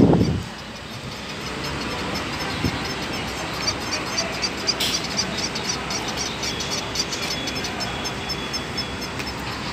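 Steady outdoor background noise at a rest area, with a faint run of high ticks repeating a few times a second from about three seconds in and one sharp click in the middle.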